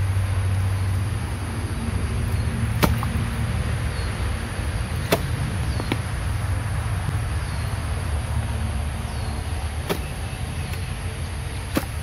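Long-handled hoe chopping into mud and soil in a narrow drain, with about five sharp, irregular knocks of the blade. A steady low rumble runs underneath.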